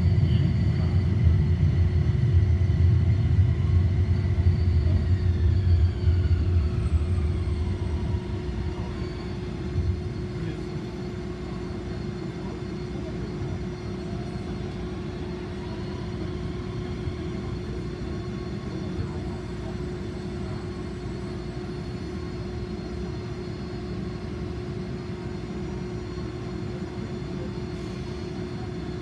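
Toyama Chitetsu city tram heard from inside the car. For the first several seconds its running rumble is strong; then the traction motor's whine falls in pitch and the rumble fades as the tram slows. Later a whine rises as it moves off again, over a steady hum.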